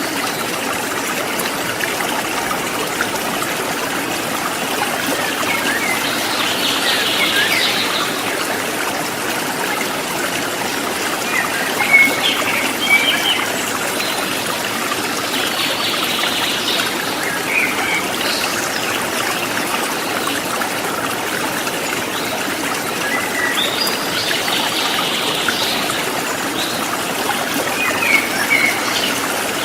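River water flowing steadily over rocks, a constant rushing babble. Short bird chirps come through it several times.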